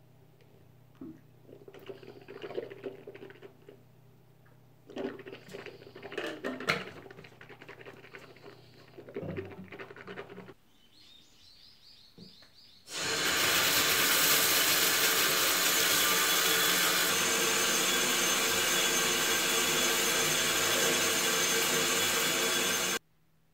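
A few seconds of light clinks and handling, then a tap turned on: water running steadily for about ten seconds before it stops suddenly.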